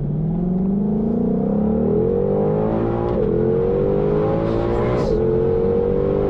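Shelby GT500's supercharged V8 pulling hard under full-throttle acceleration, heard from inside the cabin. The pitch climbs steadily, and the dual-clutch gearbox snaps through quick upshifts about three seconds in and again about five seconds in.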